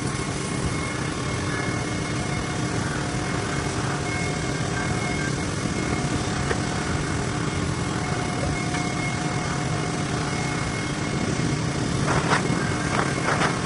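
TIG welding on a 12-inch carbon steel pipe cap, heard as a steady machinery drone and hiss with a faint thin whine held throughout. A few short sharper sounds come near the end.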